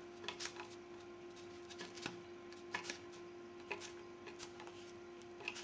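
Knife cutting cheese on a cutting board: faint, irregular clicks and scrapes of the blade, over a steady low hum.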